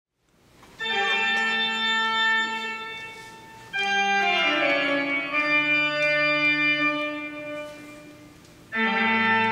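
Organ music: three long held chords. The first comes in about a second in, the second just before four seconds and slides down in pitch, and the third starts near the end. Each fades away before the next.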